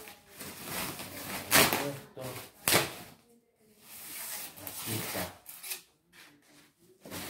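White packing sheet rustling and crinkling in several loud scrunches as an electric guitar is pulled out of its wrapping, with a sharper knock or scrape about two and three-quarter seconds in.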